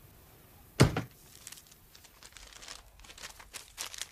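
A door slams shut about a second in, the loudest sound. Then a sheet of paper is torn and crumpled in a run of short rips and crackles that grow busier toward the end.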